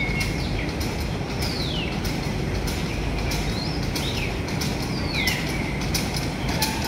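Darjeeling Himalayan Railway narrow-gauge toy train running: a steady rumble with quick clicks from the wheels. Several short, high tones fall in pitch over it, and a steady tone comes in near the end.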